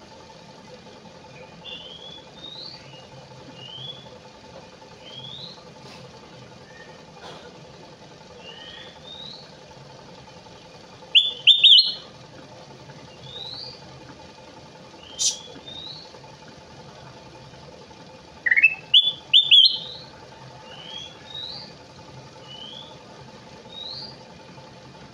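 Kutilang emas bulbul singing: short, soft rising whistled notes repeating about once a second, broken twice by loud quick runs of rising notes and once by a single loud note. A faint steady hum lies underneath.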